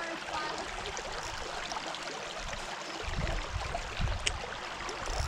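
Small ripples lapping at the shallow lake edge, a steady wash of water. From about three seconds in, gusts of wind rumble on the microphone.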